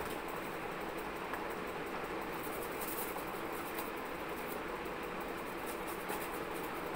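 A steady, even hiss, with faint light taps and rustles near the middle and again near the end as cardboard tubes are handled.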